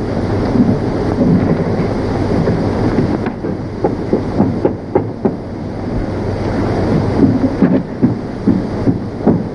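Knuckles knocking on a wooden door, a run of raps about four seconds in, with more knocks and clicks near the end, over the steady hiss and crackle of an old film soundtrack.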